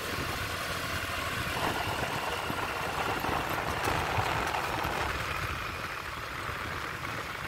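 A motor vehicle's engine running steadily, with a continuous low rumble that swells a little in the middle.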